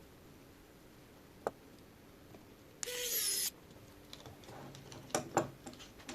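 A small electric screwdriver whirs briefly, under a second, about halfway through while driving a tiny M2 screw. Light clicks and taps of small plastic parts and screws being handled come before and after it.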